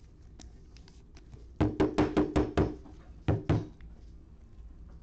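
Trading cards tapped against a tabletop: a quick run of about six sharp knocks in just over a second, then two more shortly after.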